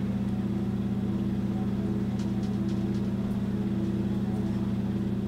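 Boat's generator running, a steady even hum with no change in speed.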